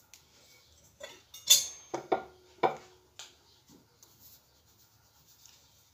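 Hands rolling banana turon in a spring roll wrapper on a ceramic plate: a handful of knocks and rubbing rustles against the plate in the first three seconds, the loudest about a second and a half in, two of them leaving a short ring from the plate.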